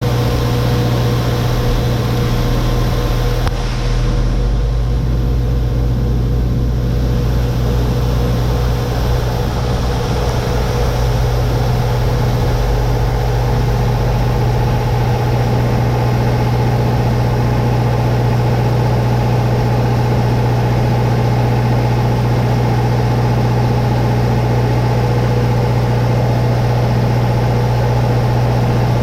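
A heavy engine running steadily at constant speed, with a deep hum and a steady higher drone over it.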